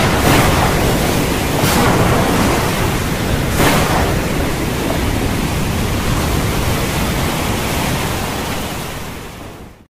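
A loud, steady rushing noise with no tone in it, swelling briefly twice in the first four seconds, then fading over the last two seconds and cutting off.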